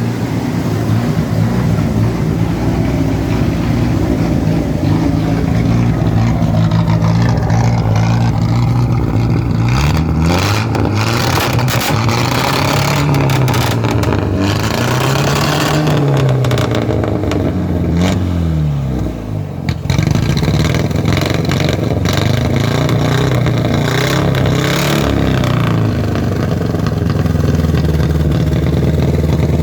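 Chevrolet Opala's inline-six engine running steadily, then revved up and down three or four times in rising and falling swells. The revs dip briefly, and the engine settles back to a steady run, with one more short rev near the end.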